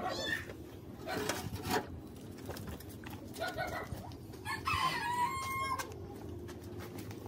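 A rooster crows once, one call about a second long past the middle, with a few scattered knocks and rattles around it.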